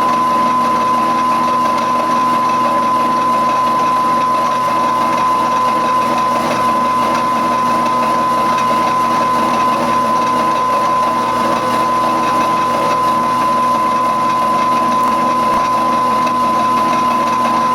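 Milling machine running a slitting saw through half-inch-thick steel, a steady mechanical cutting sound with a high tone held unchanged throughout.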